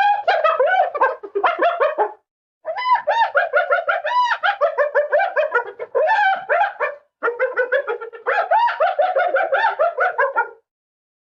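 Hyena laughing: rapid strings of short, high-pitched giggling notes, several a second, in three bouts with brief breaks about two and seven seconds in.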